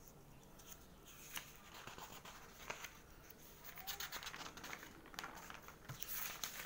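Newspaper pages rustling and crackling as they are handled and turned, in short scattered crackles that come thicker in the second half.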